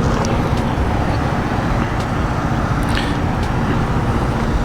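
Heavy vehicle engine running steadily with a low rumble.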